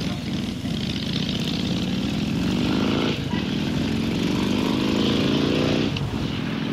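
Harley-Davidson V-twin motorcycle engine accelerating, its pitch climbing, shifting up a gear about three seconds in and again near the end, with wind noise over it.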